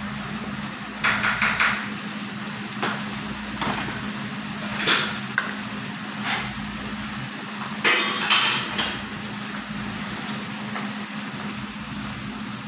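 Clattering knocks of kitchenware: a quick run of sharp strikes about a second in, a single knock near the middle and another cluster about two-thirds through, over a steady low hum.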